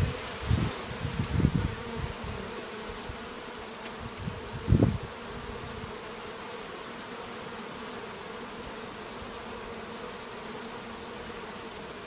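Honeybees buzzing around their hive entrances: a steady hum, with louder swells in the first two seconds and once briefly near five seconds in.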